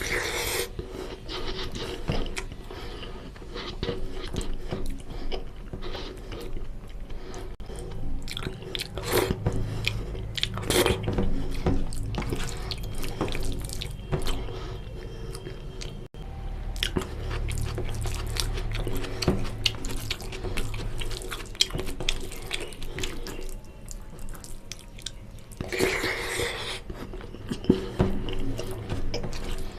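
Close-up eating sounds: wet, oily chewing and lip-smacking as mutton fat curry and rice are eaten, with many small squelching clicks.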